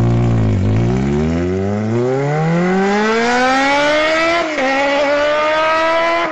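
Car engine revving up, its pitch climbing steadily for about four seconds, then dipping slightly and holding steady, like a race car accelerating through a gear change.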